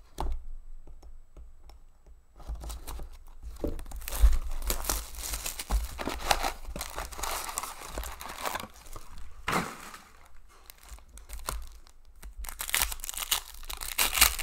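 Crinkling and tearing of wrapping as a sealed hockey card box is slit open and its foil card packs are pulled out, rustling. Near the end a foil card pack is torn open by hand.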